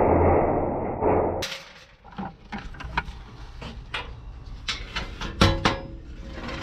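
A steady loud noise with a low hum cuts off about a second and a half in. Then come scattered knocks and clinks of metal parts being handled during the breakdown of air-conditioner units, the loudest knock a little past five seconds in.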